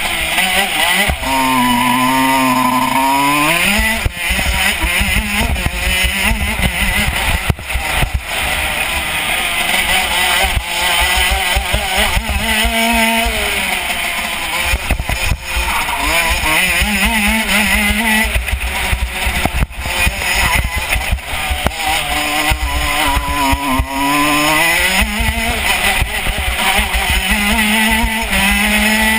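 KZ125 shifter kart's 125cc two-stroke engine at racing speed, revs repeatedly climbing and dropping back as the kart accelerates out of corners and slows into them.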